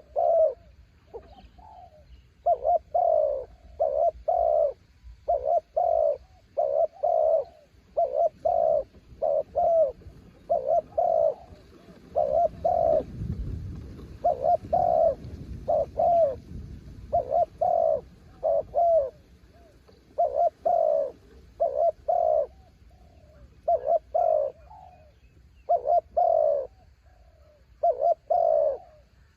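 Spotted dove cooing over and over in short, repeated phrases of soft notes. A low rumble, likely wind, rises briefly near the middle.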